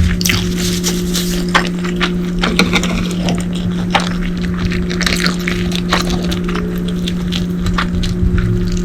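Close-miked eating sounds: chewing and crunching food, with irregular clicks and crackles, over a steady low hum.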